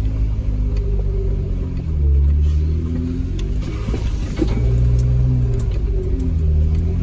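Jeep Wrangler JK's V6 engine pulling under load in four-wheel-drive low range as it crawls up a steep trail, its note rising and falling with the throttle and swelling louder about two seconds in and again about five seconds in.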